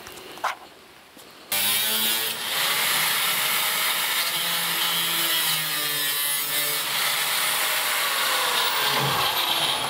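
Angle grinder with a cut-off wheel cutting through the sheet-steel rear fender of a 1964 Chevy II to radius the wheel opening. It starts suddenly about a second and a half in and runs steadily from then on.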